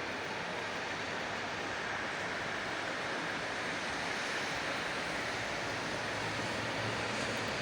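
Steady rushing of lake water and wind, an even hiss-like wash with no distinct breaks or individual wave surges.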